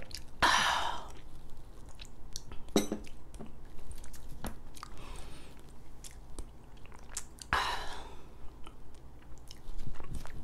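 Close-miked mouth and breath sounds from a woman who has just downed a glass of beer: two breathy exhales, one about half a second in and one near the end, with small lip smacks and clicks between.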